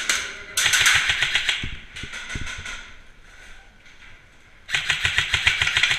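Krytac CRB airsoft electric rifle firing full-auto bursts, a fast rattle of clicks. One long burst starts about half a second in, a shorter one follows, and another begins near the end.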